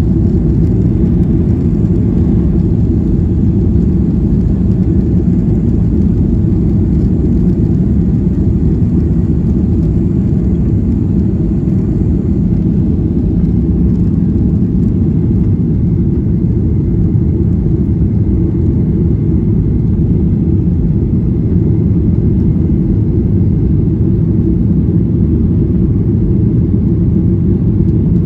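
Steady, loud low rumble of a jet airliner's engines and rushing air, heard inside the passenger cabin.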